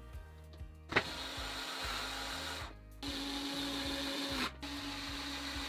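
Small cordless screwdriver motor running in three spells of about one and a half seconds each, with short breaks between, driving M3 bolts into a 3D-printed plastic backplate. The first run starts about a second in.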